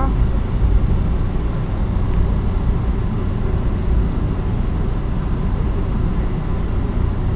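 Steady low rumble inside an NJ Transit passenger car as the train pulls slowly out of the station.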